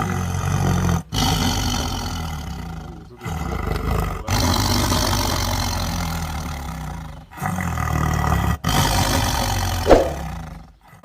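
Lion roaring and growling in a run of rough, deep calls. Several separate recordings are spliced back to back, each cutting off abruptly.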